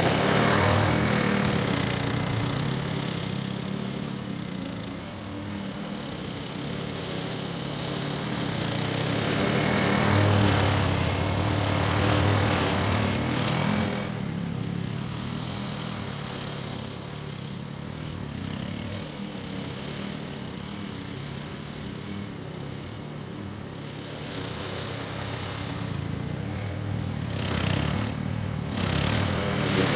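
Powersmart 144cc single-cylinder push mower engine running steadily under load while cutting grass. It grows louder as the mower passes close, about ten seconds in and again near the end, and fades as it moves away.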